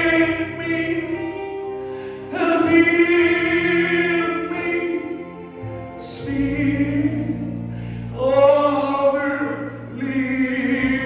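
Gospel worship singing: voices sing long, held phrases, a new one every two to three seconds, over a steady instrumental backing.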